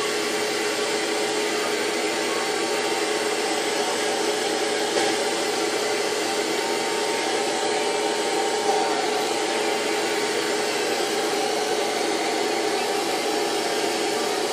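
Handheld hair dryer running steadily: a constant rush of air with a steady motor whine.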